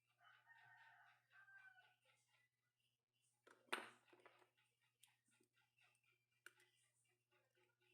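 A faint, drawn-out animal call about a second and a half long, then about halfway through a sudden short burst of noise, the loudest thing here, over faint scattered ticking.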